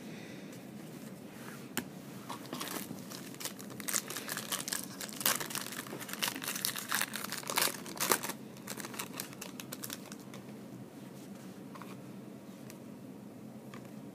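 Plastic trading-card pack wrapper being crinkled and torn open by hand. The crackling runs from about two seconds in to about nine seconds in, loudest near the middle, then dies away.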